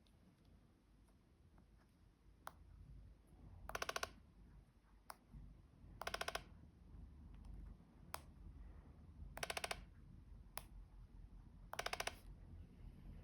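iPhone 13 taptic engine buzzing four times, each buzz about half a second of rapid rattling pulses, with single light clicks in between. The rattle is the sign of a faulty taptic engine.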